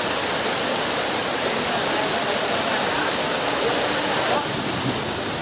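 Waterfall: a steady rush of falling water, a dense even noise, slightly quieter about four seconds in.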